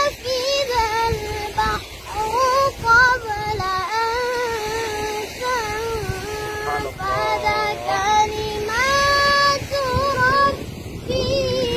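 A child's high voice chanting Qur'anic recitation in long, ornamented melodic phrases, the held notes wavering and trilling, with short breaks for breath between phrases.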